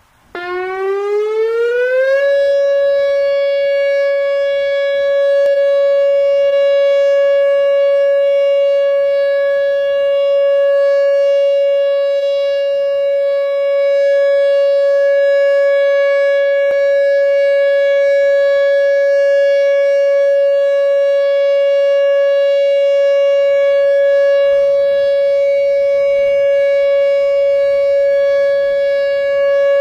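Solar-powered Whelen WPS-2910 electronic outdoor warning siren starting its alert signal for a monthly test. The tone comes on just after the start and rises in pitch over about two seconds, then holds one steady, loud tone with many overtones.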